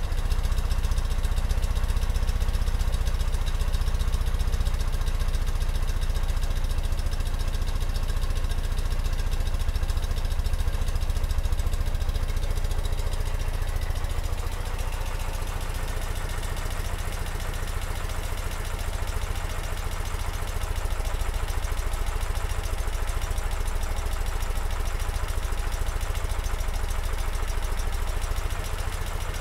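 Ural sidecar motorcycle's air-cooled flat-twin engine idling steadily after a cold start.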